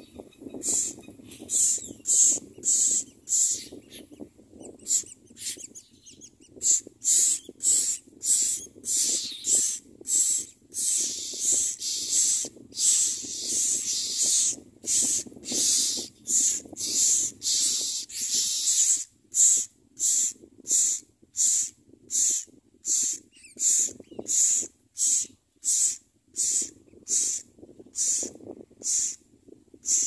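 Common myna nestlings begging for food: harsh, hissing rasps repeated about twice a second, running together into a near-continuous chorus in the middle, when the parent is at the nest feeding them.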